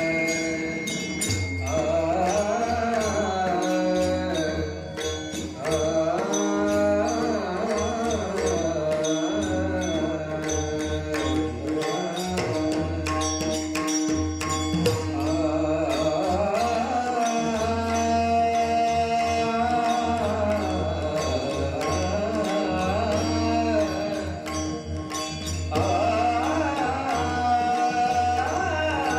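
A male devotional singer singing a Bhairavi, his voice gliding through ornamented phrases over instrumental accompaniment with a held drone and a low, pulsing percussion.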